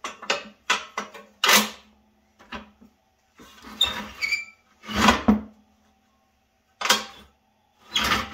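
The sheet-metal seat frame of a John Deere 3010 float-ride seat clanking and rattling as its top sliding section is worked down and slides back up. There are about nine separate clanks, with a brief metal squeak about four seconds in. The slide is stiff, which the owner thinks may need lubrication or a tighter spring.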